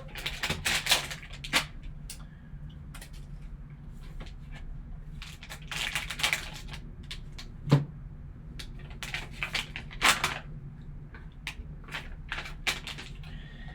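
Hands opening and handling a sealed trading-card pack: scattered clicks, taps and short rustles of packaging over a faint low hum.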